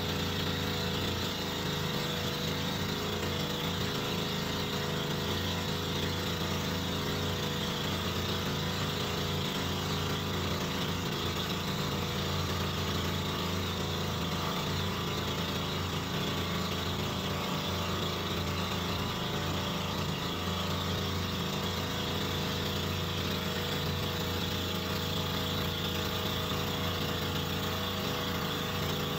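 Outrigger bangka boat's engine running steadily as the boat cruises.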